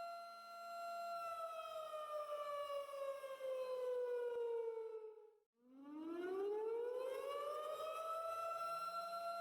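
Civil defense siren sounding a steady tone, then winding down in pitch over about four seconds, cutting out for a moment, and winding back up to full pitch, where it holds.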